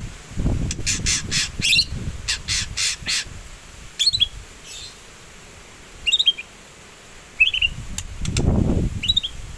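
A bird giving lovebird-like calls: a burst of rapid, harsh chattering, then short sharp chirps that fall in pitch, about four of them spread through the rest. A low rumble sounds briefly near the end.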